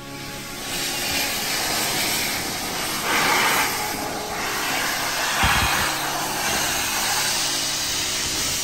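LNER A4 steam locomotive blowing steam from its open cylinder drain cocks: a loud, steady hiss that surges twice, with a brief low thump about five seconds in.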